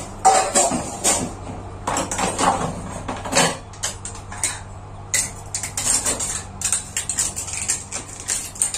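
Washed dishes and metal kitchen utensils clinking and clattering as they are put away, a run of quick, irregular knocks and clinks.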